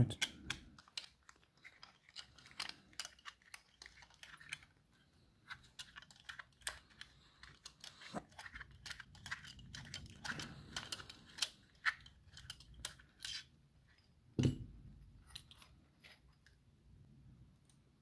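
Small irregular clicks and scrapes of a screwdriver turning a Phillips head screw inside a metal padlock body, with one louder knock about fourteen and a half seconds in.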